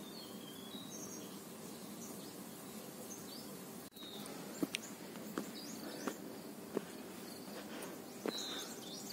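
Footsteps on a rocky, leaf-strewn dirt trail: irregular crunches and knocks of shoes on stones and gravel, starting about four seconds in. Under them is steady outdoor background noise with a few short bird chirps.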